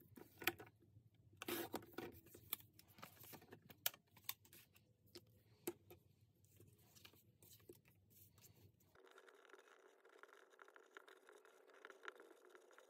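Faint taps and rustles of paper photos being handled and trimmed, then, from about nine seconds in, the faint steady scratching of a pencil writing on paper.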